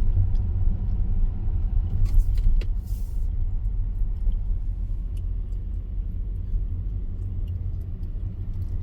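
A car driving, heard from inside the cabin: a steady low rumble of engine and road, with a brief cluster of sharp rattling clicks about two to three seconds in.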